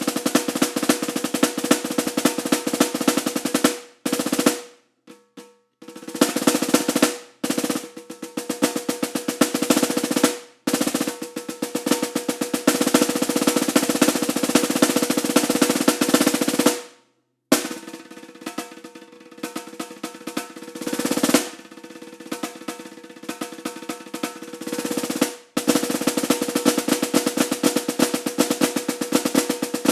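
Snare drum played solo: fast rolls and rapid strokes over the drum's ringing tone, cut off abruptly by short silences a few times. A quieter stretch in the middle swells back up before the full, loud rolls return.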